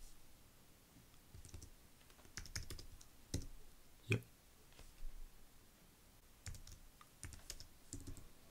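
Computer keyboard typing: short runs of keystrokes with pauses between them, one heavier keystroke about four seconds in.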